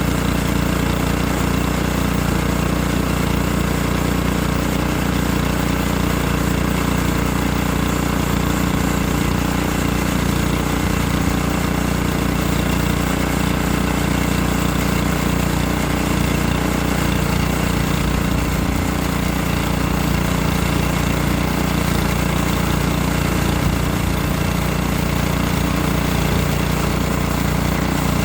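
Portable sawmill's engine running steadily at an even pitch.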